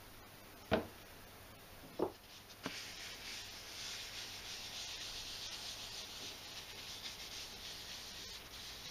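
Three sharp knocks in the first three seconds, then a gloved hand rubbing Danish oil into a wooden block: a steady, soft, hissing rub.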